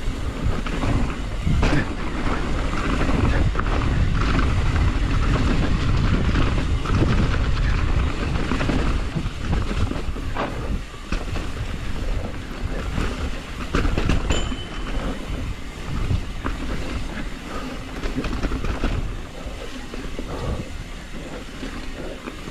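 Transition TransAM hardtail mountain bike riding fast down a rough dirt trail: a steady low rumble of tyres over the ground, with frequent knocks and rattles from the bike over roots and bumps. A brief high squeal comes about two-thirds of the way through.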